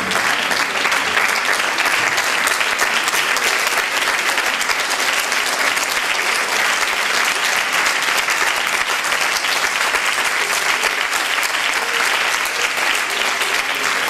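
A theatre audience applauding steadily, many hands clapping without a break.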